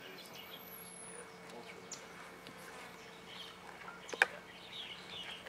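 Quiet outdoor ambience: a steady faint hum with scattered faint chirps, and one sharp click a little after four seconds in.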